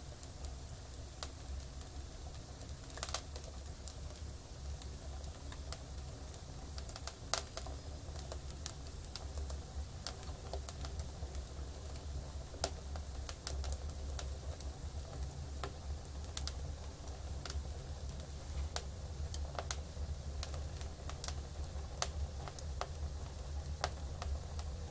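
Wood fire burning in a stove's firebox, crackling with irregular sharp pops over a low steady rumble.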